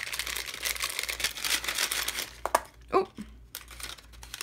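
Small paper gift bag crinkling and rustling as it is handled and opened, dense for the first couple of seconds and then quieter.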